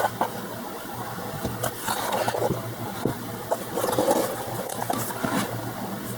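Cardboard trading cards being handled and slid against one another, irregular light scraping and rustling, over a low steady hum.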